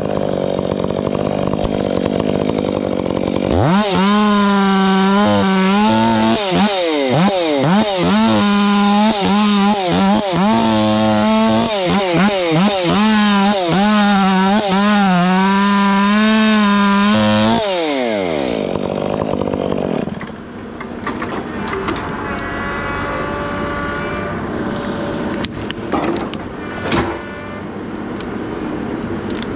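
Chainsaw revved up to full throttle and cutting knots off a felled log, its pitch dipping each time the chain bites and climbing again as it clears. It then winds down to idle near the middle. Quieter machinery runs before and after the saw, with some ticking near the end.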